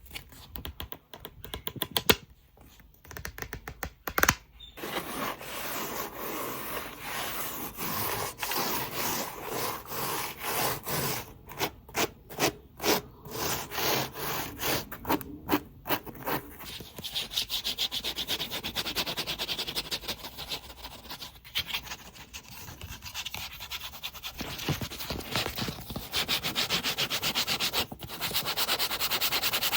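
Close-miked scratching and rubbing strokes on an object, with a couple of sharp taps in the first few seconds. The strokes are slower in the first half, about two a second, then become a fast, dense run of scratches.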